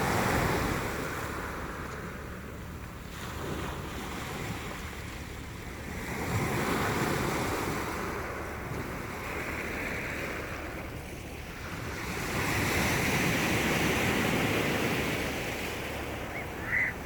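Mediterranean sea waves washing onto the shore, swelling and falling back about every six seconds. There is a brief sharp sound near the end.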